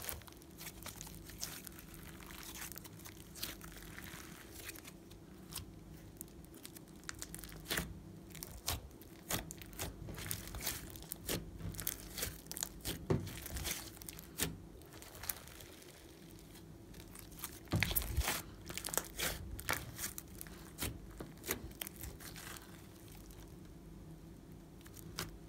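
A large mass of soft slime squeezed, kneaded and stretched by hand, giving irregular sticky clicks, pops and crackles as it folds and pulls apart.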